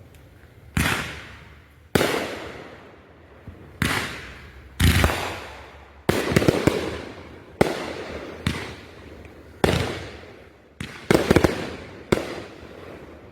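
Consumer fireworks going off in a rapid series: about a dozen sharp bangs roughly a second apart, each trailing off slowly, with clusters of quick pops around the middle and near the end.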